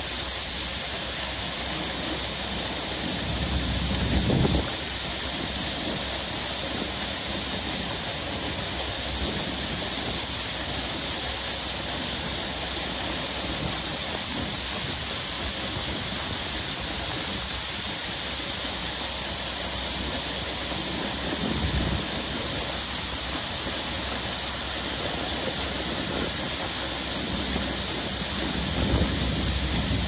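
Wind blowing across an open field: a steady hiss, with a few brief low gusts buffeting the microphone a few seconds in, about two-thirds through and near the end.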